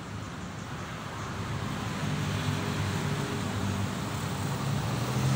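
Road traffic noise with a motor vehicle's engine running close by, its low hum growing louder about two seconds in and holding steady.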